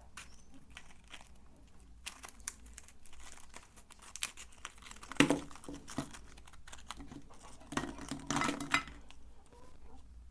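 Crinkly material being crumpled and squeezed, a dense run of small crackles with two louder bouts, one about five seconds in and one near the end.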